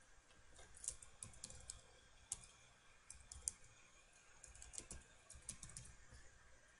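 Computer keyboard keys clicking faintly as a username and password are typed, in short runs of keystrokes with pauses between.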